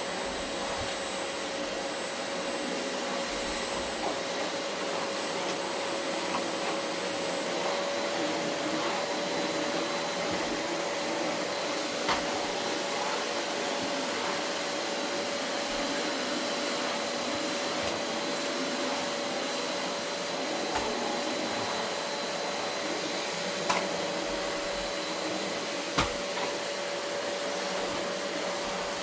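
Vacuum cleaner running steadily on carpet, a steady motor whine over its rushing noise, with a few sharp clicks or knocks along the way.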